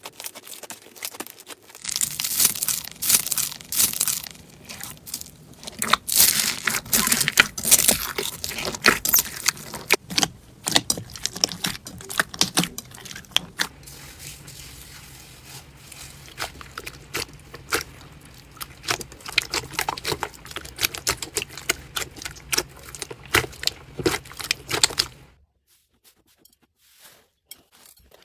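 Slime being worked by hand, making dense crunchy crackles and pops. It starts about two seconds in and stops a few seconds before the end.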